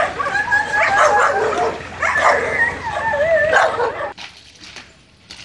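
A dog whining and yelping in high, wavering cries that stop abruptly about four seconds in.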